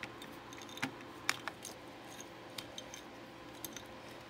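Scattered light clicks and taps of small computer hardware being handled and pressed into place while a CPU cooler is fitted to a motherboard, with a few sharper ticks about one and a half seconds in.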